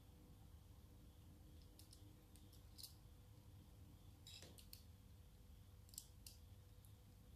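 A handful of faint, scattered clicks of hard plastic as a plastic model kit's parts and joints are handled and moved, over a very low background hum.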